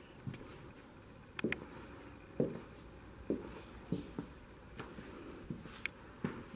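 Irregular light knocks and clicks, about ten over several seconds, mostly dull and low with a few sharp high ticks, over quiet room tone.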